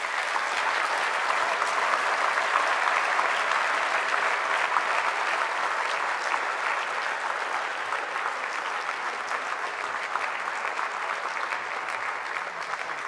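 A large lecture-hall audience applauding at the end of a talk: sustained clapping that builds quickly and slowly tapers off.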